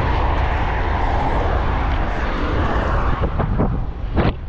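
Wind rushing over the microphone of a camera on a bicycle riding at speed: a loud, steady low roar. Near the end come a few short sharp clicks.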